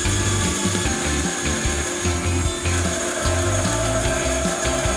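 Bandsaw running and cutting through a piece of engineered wood flooring as it is fed along the fence. A steady higher tone joins the cut about three seconds in.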